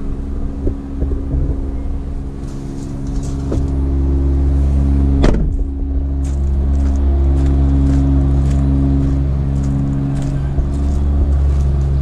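A steady low rumble with a hum under it throughout. About five seconds in, one sharp knock as the van's door is shut. After that come light crunching steps on gravel.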